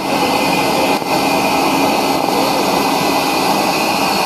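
Steam locomotive venting steam: a steady, loud hiss.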